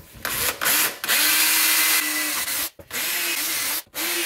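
Battery-powered drill boring a hole through aluminum sheet, guided by the bolt hole of a clamped bearing plate. After a few short starts it runs at a steady whine as the bit cuts, stopping briefly twice and starting again.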